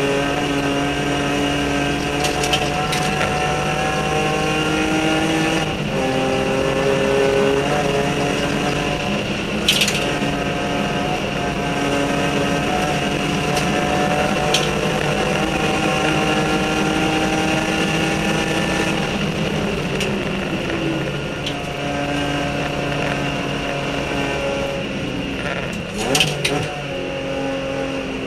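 BMW E46 M3 race car's engine heard from inside the cockpit, hard on the throttle: its pitch climbs through each gear and drops back at every upshift. About two-thirds of the way through the revs fall away, then it pulls up through the gears again. A few sharp knocks cut through, one about a second before the end.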